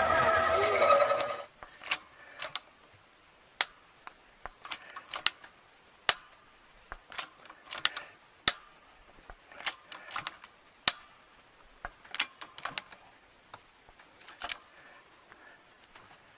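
Atlas 618 lathe running steadily for about a second, then cutting off abruptly. After that come irregular sharp metallic clicks and ticks, a few to several each second.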